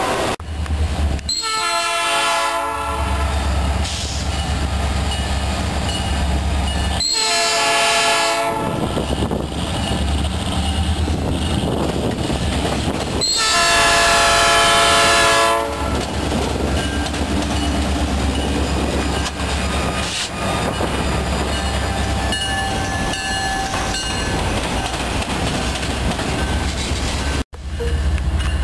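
Diesel freight locomotive's air horn sounding three blasts, the last the longest and loudest, over the steady low rumble and wheel clatter of a moving freight train. The horn is sounded for a road grade crossing by a Norfolk Southern locomotive.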